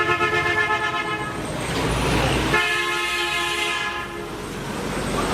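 A horn-like steady tone sounds twice: the first is already sounding and stops about a second in, and the second starts midway and lasts just over a second.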